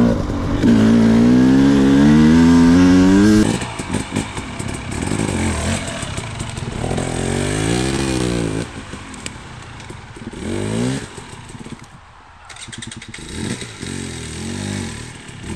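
Two-stroke dirt bike engine revving: it climbs steadily in pitch for about three seconds, then cuts off suddenly. The engine then rises and falls again midway and gives shorter, quieter blips near the end.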